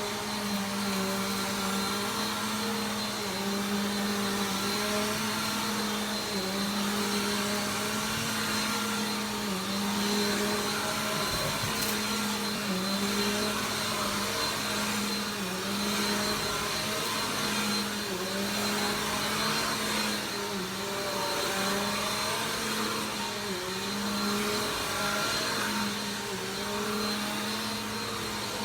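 Vacuum cleaner running steadily, its motor tone dipping briefly every couple of seconds.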